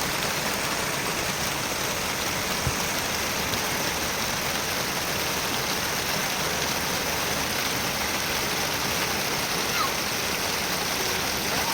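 Heavy rain falling steadily, a dense even hiss, with one soft thump about a quarter of the way in.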